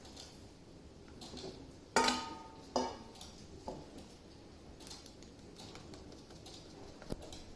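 Kitchen utensils knocking and clinking against a mixing bowl while caster sugar is added to the cake mix. Two sharp knocks with a brief ring come about two seconds in and soon after, followed by a few lighter clicks.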